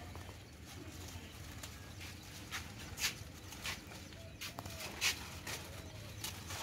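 Vine leaves, some of them dry, rustling and crackling as hands push through a trellis to pick a gourd, with several short sharp crackles in the second half.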